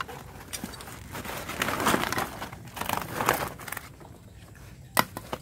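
Plastic sack rustling and crinkling in bursts as it is handled and held open, with one sharp click near the end.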